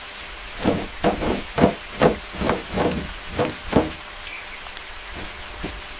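A run of about nine hard knocks, a little under three a second, stopping after about three seconds, over a steady background hiss.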